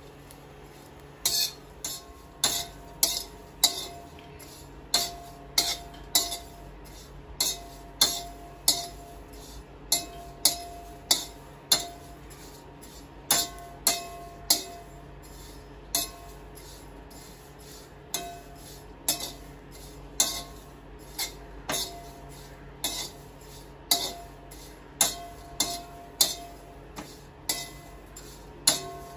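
Metal spatula clinking and scraping against a shallow metal pan while stirring dried baby prawns as they dry-roast, in irregular sharp taps about once or twice a second, each leaving a short ring from the pan.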